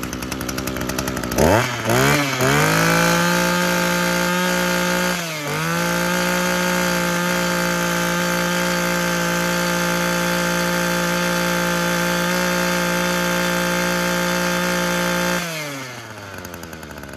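Echo CT24TE 24 cc two-stroke brush cutter engine idling, then revved up about a second and a half in and held at high speed with a steady whine. It dips briefly once around five seconds in, and drops back to idle near the end. It runs evenly, which the seller calls very smooth.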